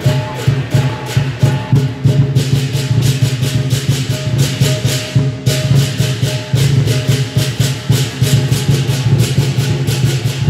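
Chinese lion dance percussion: a big drum beating with clashing cymbals in a fast, even rhythm.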